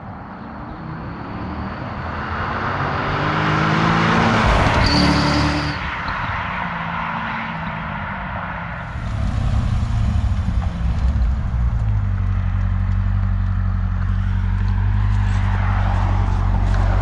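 2006 Corvette C6 Z06's 7.0-litre V8 exhaust, heard from the rear of the car, accelerating with its pitch climbing, falling back about six seconds in, then running loud and steady from about twelve seconds on. A brief high whistle from the clip-on fake turbo whistles in the exhaust tips sounds near the peak about five seconds in.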